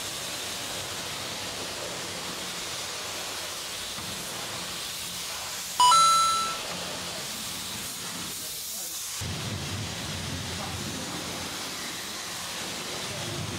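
Steady hiss of high-pressure water from a self-service car wash spray lance rinsing snow foam off a car. About six seconds in, a short bright chime rings and fades.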